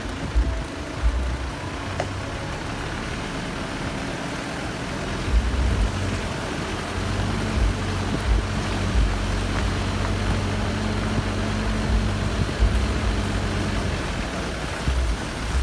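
Car driving slowly along a wet unsealed driveway, heard from inside the car: a steady low engine hum with tyre noise and scattered low bumps from the uneven surface.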